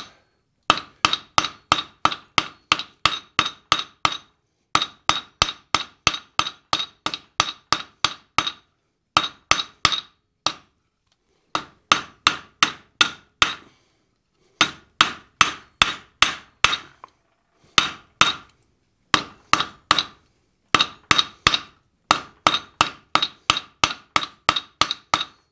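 Hand hammer striking a red-hot steel bar on a steel block set on the anvil, rounding up the bar's knob end: runs of quick blows, about four a second, each with a short metallic ring, separated by brief pauses.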